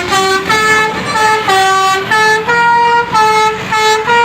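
Bus telolet horn, a Basuri multi-tone air horn, playing a melody: a quick run of held notes stepping up and down in pitch, each lasting about a third to half a second, with a longer held note near the end.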